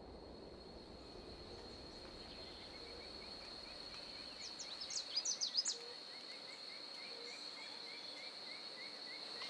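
Tropical forest ambience: a steady high-pitched insect trill throughout, with a soft series of short chirps repeating about three times a second. About five seconds in, a brief burst of sharp, high bird notes stands out as the loudest sound.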